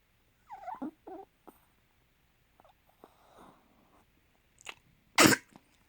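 Snoring from a sleeper: a short falling whine about half a second in, a soft breath around three seconds, then one loud sharp burst about five seconds in, the loudest sound.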